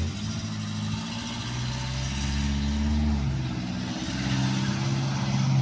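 A motor vehicle running close by: a low hum that shifts in pitch in steps, over a rushing noise that swells around the middle.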